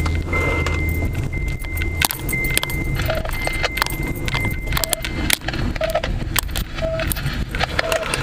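Moving car heard from inside the cabin: a steady low rumble of engine and road, with irregular small clicks and jangles. A high-pitched tone holds, with short gaps, for the first five seconds or so. In the second half a short beep comes about once a second.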